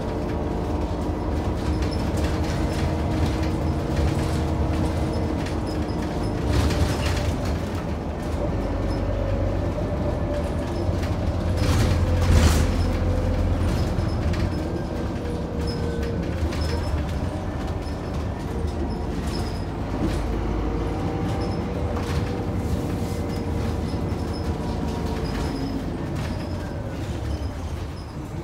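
A Scania K94UB bus's DC9 nine-litre six-cylinder diesel engine running under way, heard from aboard the bus. The engine note rises and falls slowly with rattles throughout and a loud thump about halfway through.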